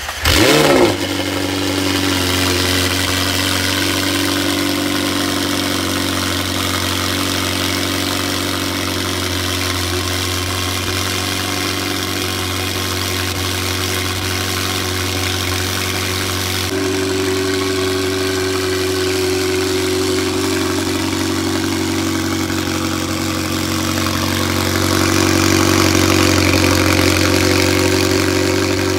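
McLaren 720S twin-turbo V8 just after start-up: a short loud rev flare in the first second, then it settles into a steady idle.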